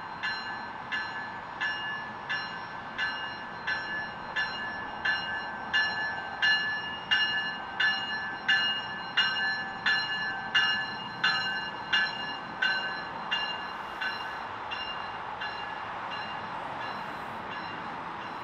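A bell rings at a steady pace, about one and a half strikes a second, growing louder and then fading out and stopping near the end. Underneath is the running noise of a passing Bombardier bi-level commuter train.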